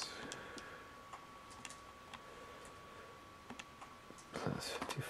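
Faint, scattered clicks of a TI-89 graphing calculator's keys being pressed as a sum is keyed in.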